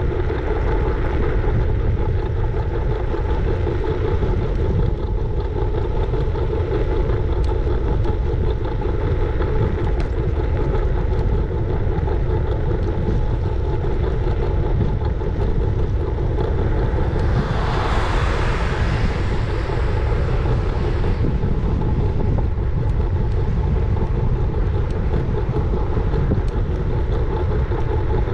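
Riding scooter on the road: steady wind rumble on the action camera's microphone with the rolling noise of the wheels, and a faint steady tone underneath. A louder hiss swells for a few seconds about two thirds of the way in.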